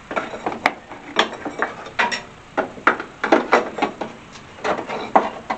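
Irregular metallic clicks and knocks of a hand tool working at the stuck brake master cylinder pushrod on the firewall.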